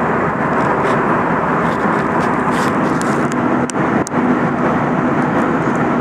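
Steady, loud roar of an airliner cabin: jet engine and airflow noise with a low hum underneath, plus a couple of brief clicks of handling noise in the middle.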